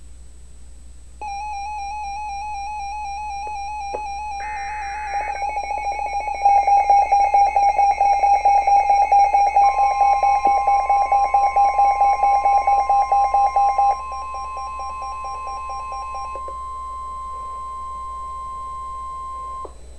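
Emergency Alert System weather-radio alert tones. A warbling electronic alert tone starts about a second in, with a fast loud pulsing beat through the middle. About halfway through, the steady single-pitched weather-radio warning tone (about 1050 Hz) comes in, lasts about ten seconds and ends alone.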